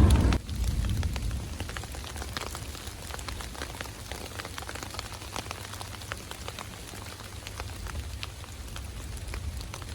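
Steady rain falling, with many individual drops ticking close by. A loud clap of thunder dies away in the first half-second.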